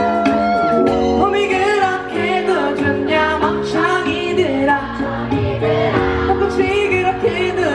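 Live pop song: a male lead vocalist sings into a microphone over acoustic guitar and band accompaniment. A long held note opens, then quick, choppy sung lines follow.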